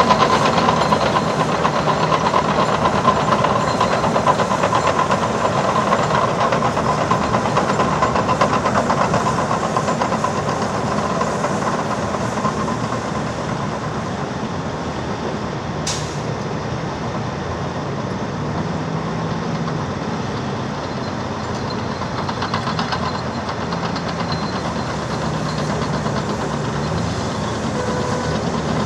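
Heavy diesel earthmoving machinery running steadily, louder in the first half and easing off a little midway, with one brief sharp click about sixteen seconds in.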